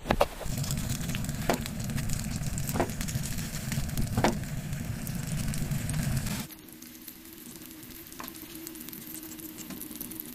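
Sausage slices sizzling in a skillet, with a few sharp taps as a wooden stick turns them. About six and a half seconds in, the sound drops to a quieter sizzle.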